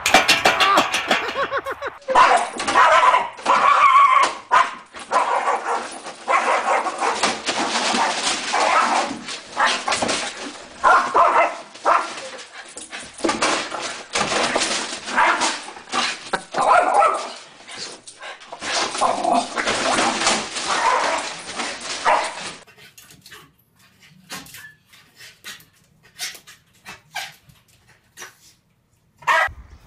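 Dog barking and whimpering over and over, with sharp knocks among the barks; after about twenty seconds it drops to quieter, scattered clicks.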